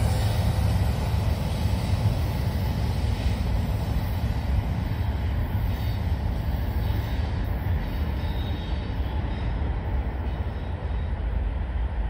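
BNSF diesel freight train rumbling as it moves away along the track, a low steady rumble that slowly fades.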